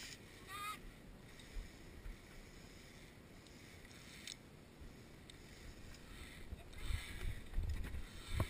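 Footsteps thudding on wooden stair treads, with wind buffeting the microphone, the thumps growing louder over the last two seconds. A short wavering call sounds about half a second in.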